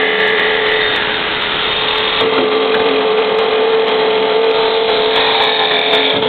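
Genini MiniAutomat 06 automatic wood lathe running, its cutter shaving a spinning wooden workpiece: a steady machine tone under the hiss of the cut, with the tone growing stronger about two seconds in.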